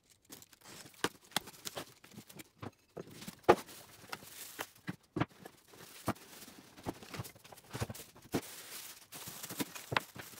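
Unboxing noises from a cardboard power-tool box: a utility knife cutting the tape near the start, then cardboard flaps, plastic-wrapped parts and foam packing rustling, with scattered irregular knocks and clunks as parts are lifted out and set on a wooden bench; the loudest knock comes about three and a half seconds in.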